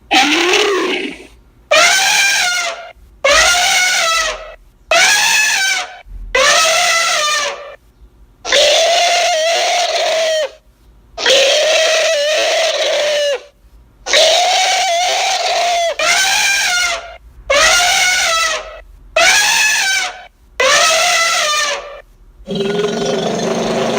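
Deinotherium creature sound effect: about a dozen loud calls in quick succession, each one to two seconds long and rising then falling in pitch. Near the end a different, steady low sound begins.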